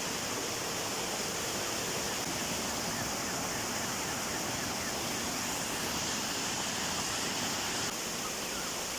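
Waterfall of more than 10 m pouring into its stream: a steady, even rush of falling water.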